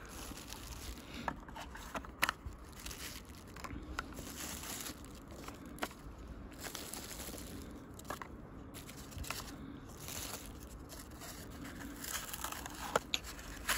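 Plastic packaging being handled: a plastic bag and bubble wrap crinkling against a cardboard knife box, with scattered light clicks and taps.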